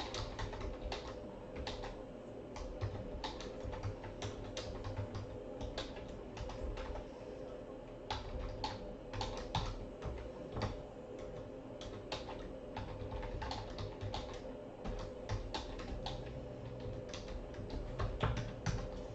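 Typing on a computer keyboard, irregular quick key clicks with short pauses, over a faint steady hum.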